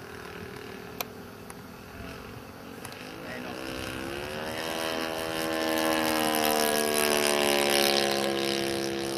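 Model airplane engine in flight, an ASP 400 glow engine converted to run on petrol: a steady buzzing drone that rises in pitch about three to four seconds in, then holds and grows louder as the plane comes closer. A single sharp click about a second in.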